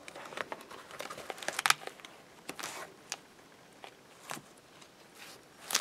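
Aged paper pages of an old ring-bound cookbook being turned by hand: faint, scattered rustling and crinkling with a few light taps and clicks.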